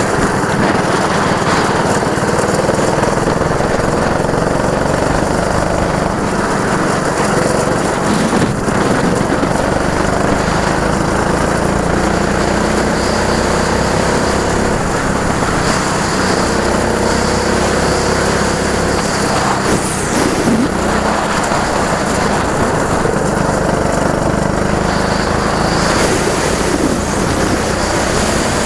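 Go-kart engine running hard, its pitch climbing steadily then dropping back again and again as the kart accelerates down straights and slows into corners.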